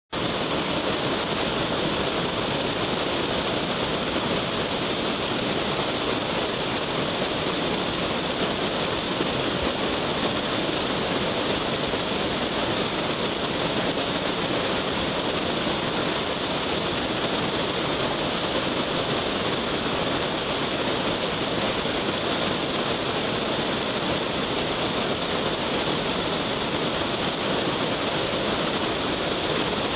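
Large waterfall swollen after a night of rain: a steady, unbroken rush of heavy falling water.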